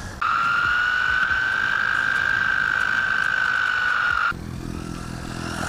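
Brushed electric motor and drivetrain of a Wltoys 124019 RC buggy whining at speed, a high steady pitch that rises a little then sags. It cuts off abruptly about four seconds in, giving way to a lower, steadier hum.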